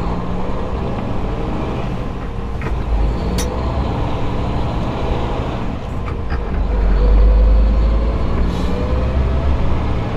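Diesel engine of a 2013 International ProStar Eagle Plus semi tractor, heard from inside the cab, pulling a light load and building speed, with its pitch rising a few seconds in. A few brief clicks sound over it.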